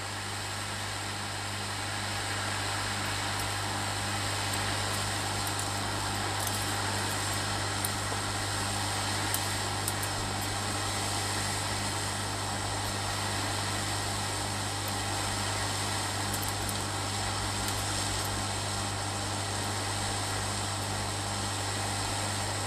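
Hot air rework station blowing steadily onto the circuit board, a constant rush of air over a low hum, as it heats the capacitors off the board for removal. A few faint ticks come through near the middle.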